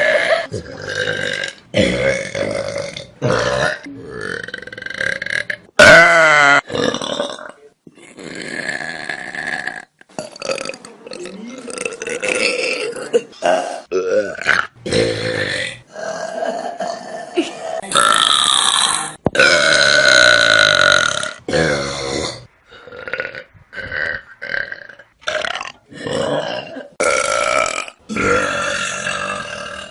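A run of human burps, one after another: long belches of differing pitch, some wavering, each cutting off abruptly as the next begins.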